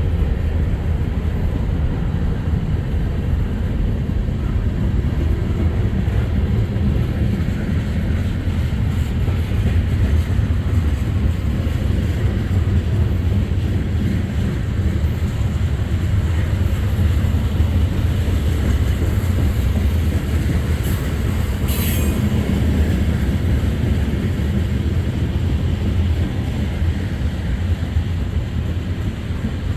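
Freight train rolling past with a steady low rumble of cars on the rails, and a brief high metallic screech about two-thirds of the way through.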